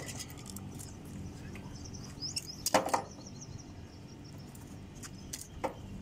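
Small metal clicks and taps of tools and wiring being handled while a burnt wire is removed from an air-conditioner's contactor, with a louder clatter about three seconds in, over a steady low hum.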